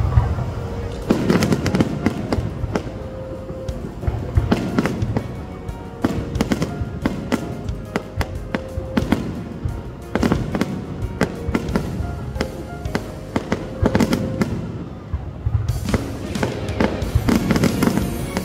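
Fireworks bursting in a rapid series of sharp cracks and crackles, with a few deeper booms, over background music.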